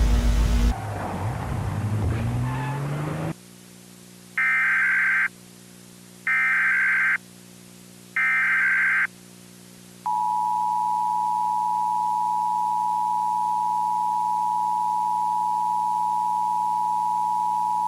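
Emergency Alert System broadcast tones. A loud garbled burst fills the first three seconds. Three short SAME data header bursts follow, about two seconds apart, then the two-tone EAS attention signal holds steady for about eight seconds. A low hum sits underneath in the gaps.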